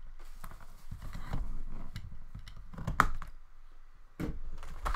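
Handling noise from a box of trading-card packs being opened and its packs handled on a table: irregular light clicks and taps, with a sharper click about three seconds in.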